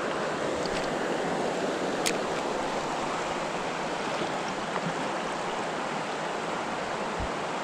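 Creek water running steadily over a shallow riffle, with a single brief click about two seconds in.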